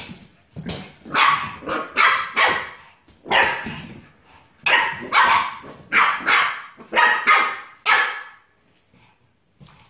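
Puppies barking in play: about a dozen short, sharp barks in quick succession, stopping about eight seconds in.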